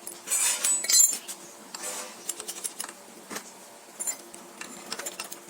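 Small metal parts and hand tools clinking and knocking, with a short loud scraping rasp in the first second and scattered sharp clicks after it.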